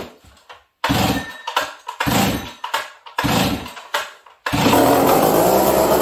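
Stihl 038 two-stroke chainsaw being pull-started cold on choke: three pulls of the starter rope about a second apart, then the engine catches about four and a half seconds in and keeps running steadily. The hard cold start is, to the owner, the sign of a lean low-speed jet or choke circuit.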